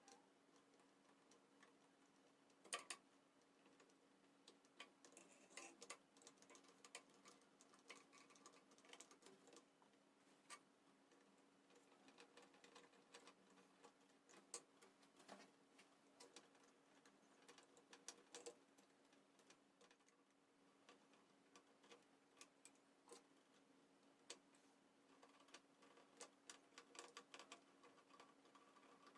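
Near silence with faint, irregular light clicks and ticks, as of small hard parts being handled, and a steady low hum underneath.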